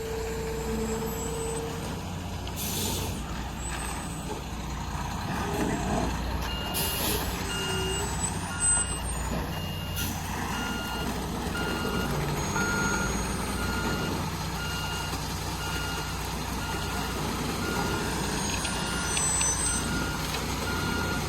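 Concrete mixer truck's diesel engine running, with two short hisses of air brakes a few seconds in, then its reversing alarm starting about six seconds in and beeping steadily through the rest.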